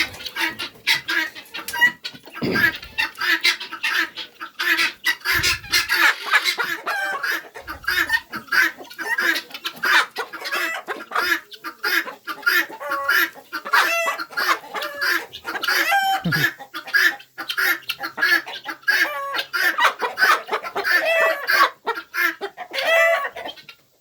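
A hen clucking almost without pause, a rapid run of short, pitch-shifting calls, unsettled at being handled. A few soft low thuds come in the first third.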